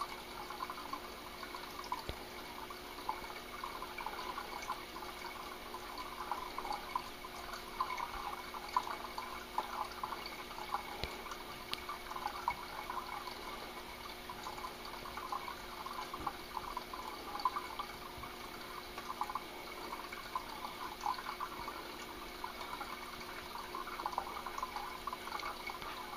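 Water trickling and dripping steadily, with a faint steady hum underneath and an occasional small click.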